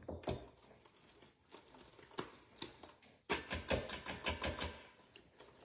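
Wire whisk folding whipped topping into pudding custard in a stainless steel bowl: a run of soft clicks and scrapes of the wires against the metal, quicker and louder from about three seconds in.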